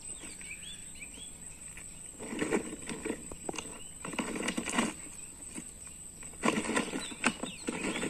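Loose gravel crunching and crackling under the plastic wheels of a child's ride-on toy excavator as it is scooted along, in three bursts, with a steady high insect whine behind.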